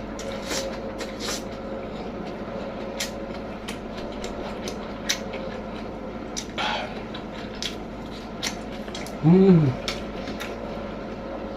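Close-up eating sounds: chewing with wet mouth clicks and smacks, scattered irregularly. About nine seconds in comes a short hummed "mm" that rises and falls in pitch.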